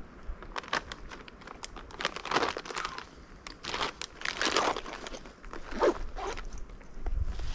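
Footsteps through leaf litter and brush on the forest floor: irregular crunching, rustling steps.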